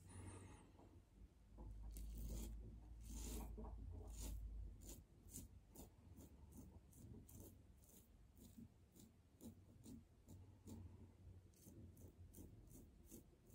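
Faint, quick rasping strokes of a King C Gillette double-edge safety razor scraping stubble off lathered skin, roughly two to three strokes a second. A low rumble sits under the strokes for a few seconds, starting about two seconds in.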